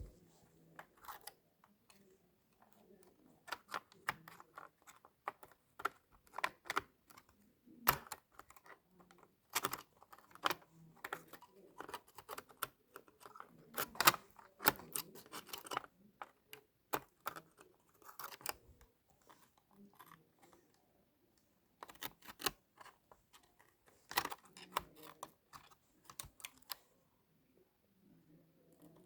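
Irregular runs of light clicks and taps on computer hardware, with a couple of pauses of a second or two.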